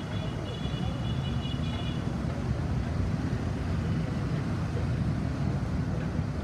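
Road traffic on a busy city avenue: a steady low rumble of passing vehicles, with a high, intermittent whine above it that stops about two seconds in.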